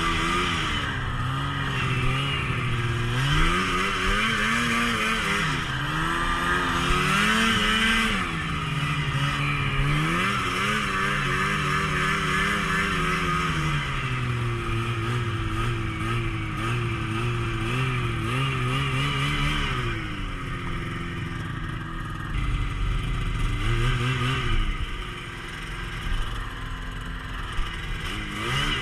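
Snowmobile engine run hard, its revs climbing and dropping again and again, every few seconds, as the throttle is worked.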